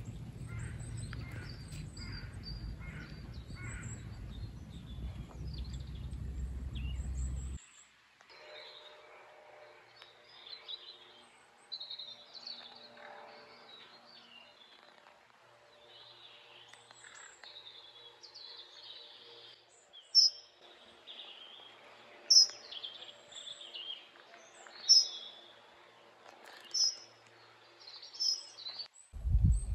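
Wild birds singing and chirping outdoors, with a low rumbling noise under the first seven or so seconds. In the second half one bird gives a loud call about every two seconds.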